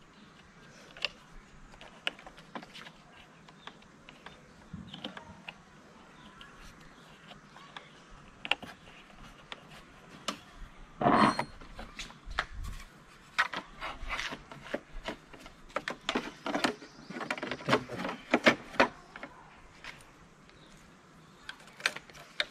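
Scattered clicks and knocks of the motorcycle's plastic body panels and battery-compartment parts being handled and fitted by hand. There is a louder knock about halfway through and a quick run of clicks after it.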